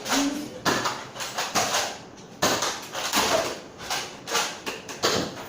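An irregular series of sharp knocks and clattering thuds, about two a second.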